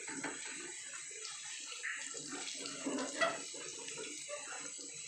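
Hot oil sizzling and crackling steadily as chicken nuggets and crinkle-cut potato fries deep-fry in a pan, with one louder crackle about three seconds in.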